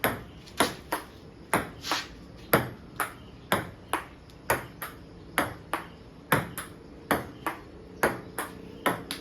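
Table tennis rally: a ping-pong ball clicking back and forth off the paddles and the table in a steady run of sharp ticks, about two a second.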